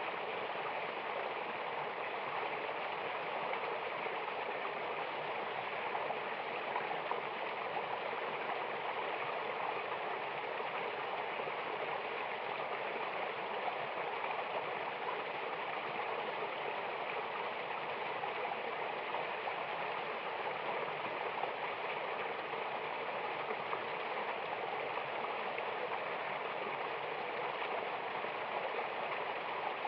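Mountain river and waterfall rushing, a steady even hiss of flowing water.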